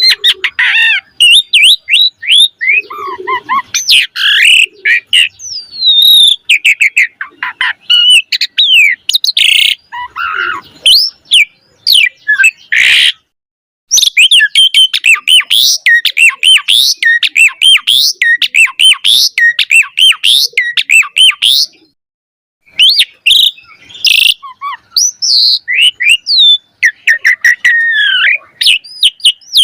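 Pied starling (jalak suren) singing a rapid, varied song packed with whistles, chirps and rasping notes, broken twice by a brief silence.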